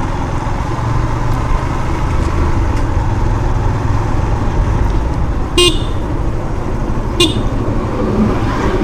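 Yamaha FZ V3 motorcycle's single-cylinder engine running steadily under way, with a vehicle horn giving two short toots about five and a half and seven seconds in.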